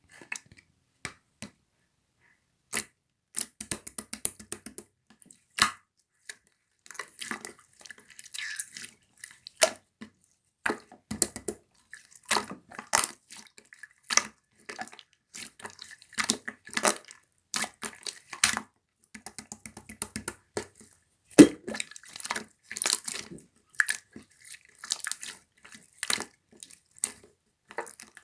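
Slime being squished and pressed by hand, giving irregular sticky clicks and pops several times a second.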